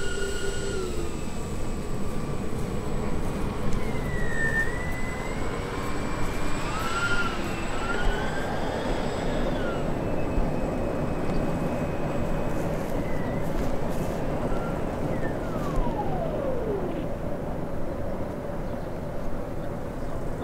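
Electric ducted-fan engines of a large RC airliner model whine while it rolls along the runway, their pitch rising and falling with the throttle. Near the end a long falling whine marks the power being pulled back. A rough steady rush of air and rolling runs underneath.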